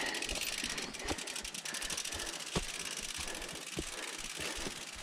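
Mountain bike ridden over a rough trail: steady tyre and wind noise with rattles and a few single knocks, and a fast, even ticking through the first couple of seconds.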